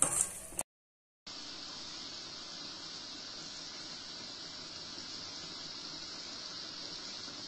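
Thick green chilli and tamarind pickle mixture in oil boiling in a pan, a steady even bubbling hiss. It follows a brief clatter of a ladle against the pan and a short gap, about a second in.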